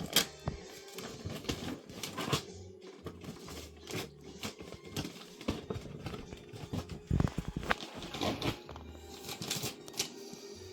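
Wrapping paper crinkling and tearing in quick irregular rips and rustles as a dog tears open a gift, with faint music behind.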